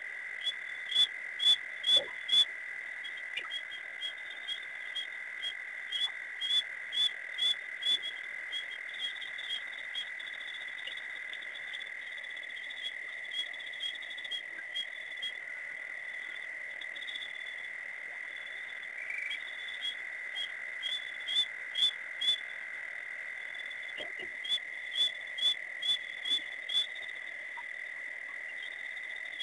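Night chorus at a waterhole: a steady high-pitched trill underneath, with sharp high calls repeated about twice a second in runs of four to eight, pausing between runs, typical of frogs calling at the pond.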